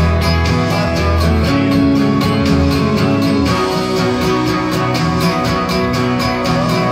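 Music: an acoustic guitar strummed in a steady rhythm, with a man singing over it.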